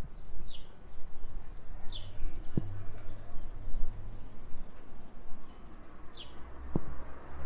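Bicycle freewheel ticking quickly as the bike coasts, over a low rumble. A bird calls three times with short falling chirps.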